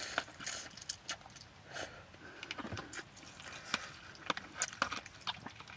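Eating noodles: the soft, irregular smacks and clicks of chewing, with a fork clicking as it stirs noodles in a plastic cup.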